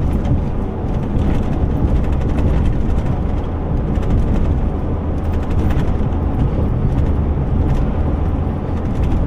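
2003 Chevy Silverado pickup driving, a steady engine and road rumble, on a test drive after a steering column bearing and intermediate shaft replacement; to the driver it sounds pretty good.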